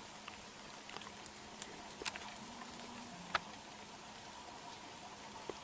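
Quiet background hiss with a few faint, scattered clicks and ticks. The sharpest comes just past halfway.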